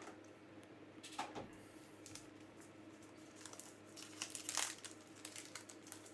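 Foil trading-card pack being torn open and crinkled by hand: faint scattered crackles, a few about a second in and busier from the middle on.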